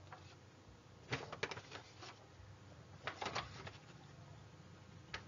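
Faint, scattered clicks and ticks in a few small clusters over quiet room tone.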